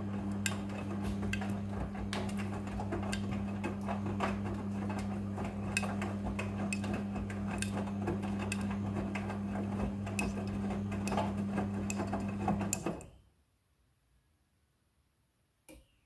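Midea front-loading washing machine in its wash cycle: a steady motor hum under the clatter and clicking of wet clothes tumbling in the drum. The sound stops abruptly about three-quarters of the way through, leaving near silence broken by one small click near the end.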